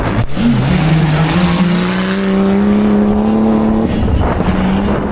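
Off-road racing 4x4's engine revving up and held at high revs for about three and a half seconds, then backing off about four seconds in.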